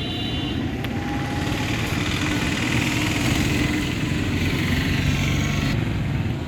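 A motor vehicle's engine running steadily, with street noise around it.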